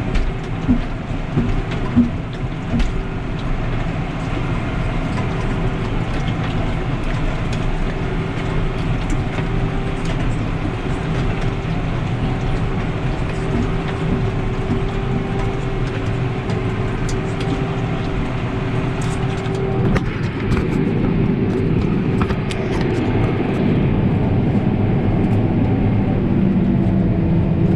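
Heavy farm diesel engine running steadily during silage chopping, with a few knocks in the first few seconds. About twenty seconds in, the engine note changes and grows a little louder.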